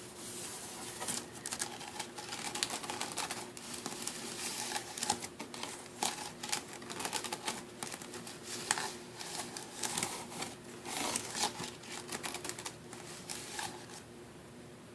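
Wicker basket being scratched and handled, giving dense, irregular crackling and clicking.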